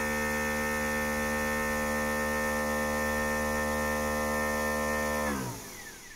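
Nespresso Vertuo coffee machine spinning the capsule with a steady hum. About five seconds in, the hum falls in pitch and dies away as the spin winds down and stops, marking the end of the brew cycle.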